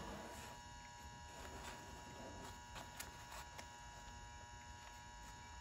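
Faint scraping and several light clicks as a putty knife lifts paint softened by stripper gel off a car's rear fender panel, over a steady low hum.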